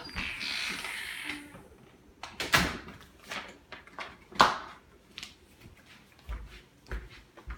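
Door noise with a short rushing sound, then two sharp knocks a couple of seconds apart, and soft footsteps on a hardwood floor near the end.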